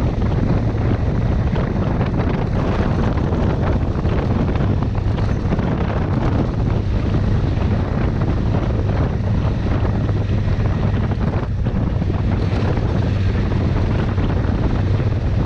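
Wind buffeting the microphone over the steady drone of a Honda Africa Twin's parallel-twin engine, holding an even speed.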